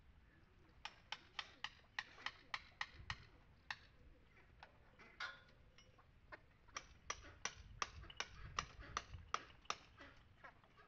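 Hammer-and-chisel taps on a stone wall's old mortar, a quick run of sharp faint clicks, about four a second, pausing for a couple of seconds midway and then resuming.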